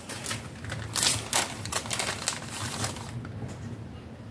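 Crackling and clicking of plastic sheets of self-adhesive craft pearls being pulled out and handled: a quick run of sharp crackles for about three seconds, then it goes quiet.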